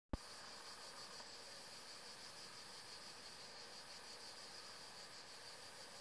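Cicadas singing: a faint, steady, high-pitched buzzing chorus with a gentle pulsing, after a single sharp click right at the start.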